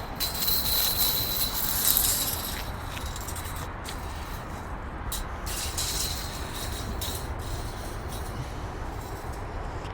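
Wind noise on the microphone, a steady low buffeting throughout, with two bursts of hissing: one from about half a second to two and a half seconds in, the other around six seconds in.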